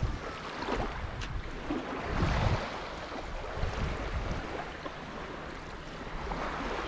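Shallow seawater sloshing and lapping as a person wades through it, with wind buffeting the microphone; the wind gusts hardest a little past two seconds in.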